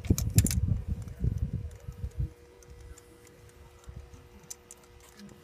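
Hand-tool work at an engine's spark plug hole: a few sharp clicks and knocks over a low rumble for about the first two seconds. After that only a faint steady hum remains.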